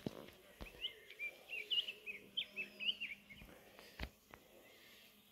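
A bird singing a quick run of short chirps, about three a second, that stops a little after three seconds in. Two sharp clicks, one early and a louder one about four seconds in.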